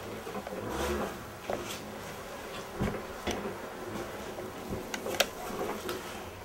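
Quiet room with a few scattered small clicks and taps from hands and tools handling an otter carcass during skinning; the sharpest click comes about five seconds in.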